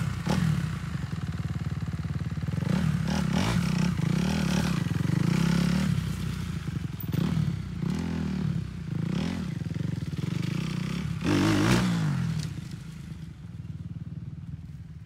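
Kawasaki KLX110 pit bike's small single-cylinder engine revving up and down in repeated swells, then fading away near the end as the bike moves off.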